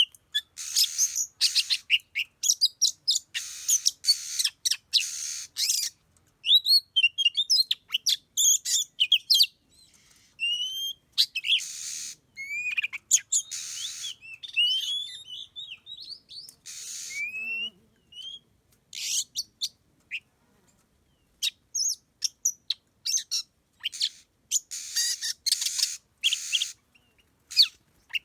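Oriental magpie-robins calling: harsh rasping scolds alternating with quick whistled song notes that slide up and down, on and off throughout, with short gaps.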